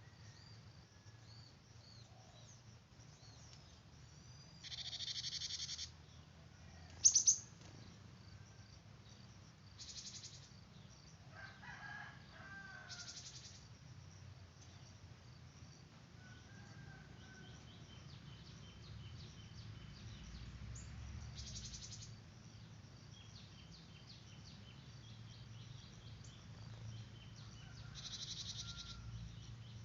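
Small birds chirping and twittering, with several short buzzy trills about a second long and one sharp, loud chirp about seven seconds in.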